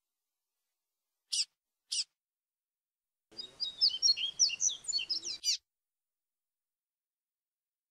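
Papa-capim seedeater (Sporophila) calling and singing: two short, high, falling chirps about a second and a half in, then a quick phrase of rapid, high whistled notes in the fluted "grego flautado" style, ending on another sweeping note.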